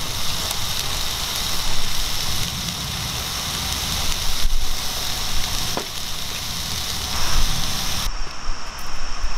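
Slices of beef tongue sizzling on a grill plate, a steady hiss, with a few light clicks of chopsticks on an aluminium mess tin. The sizzle cuts off about eight seconds in.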